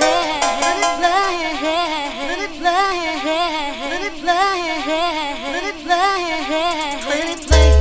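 Early-90s old school hardcore rave music played from vinyl: a beatless breakdown carried by a wavering melody that bends up and down in pitch, then heavy bass and the beat drop back in near the end.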